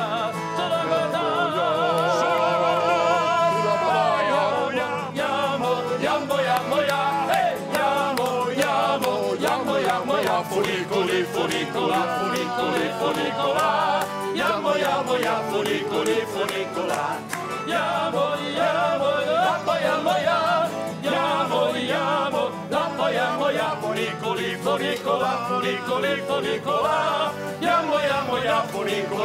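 A tarantella played live on acoustic guitar and accordion, with a man singing over a quick strummed rhythm; he holds a wavering note about two seconds in.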